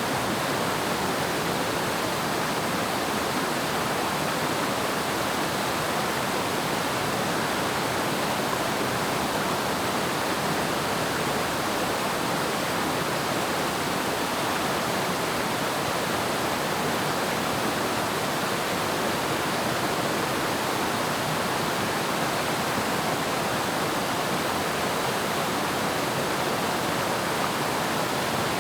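Waterfall with water falling and splashing in a steady, unbroken rush.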